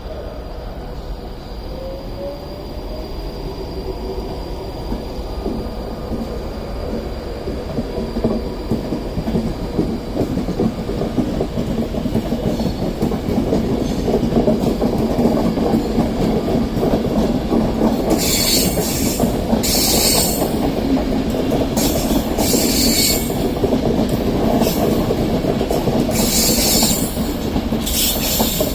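A train running through the station, its wheels clattering on the rails and growing louder. In the second half come repeated bursts of high-pitched wheel squeal.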